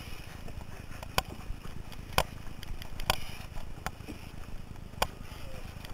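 Four-person racing canoe being paddled hard: sharp knocks about once a second in time with the paddle strokes, over a steady low rumble of wind and water.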